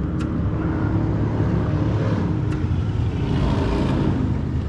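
Steady low engine rumble from a passing motor. It swells about three seconds in and eases off near the end.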